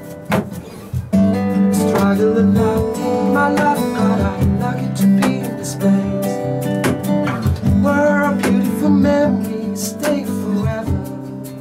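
Live acoustic music: two steel-string acoustic guitars strummed and picked together, with a cajon beating out the rhythm. The playing thins out briefly and comes back in full about a second in, and a man's voice sings over the guitars through the middle.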